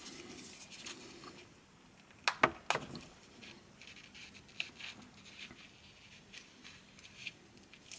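Gloved hands handling a plastic JBL Tune 510BT headphone headband while feeding a thin wire through its channel: faint rubbing and light ticks, with two sharp clicks a little over two seconds in.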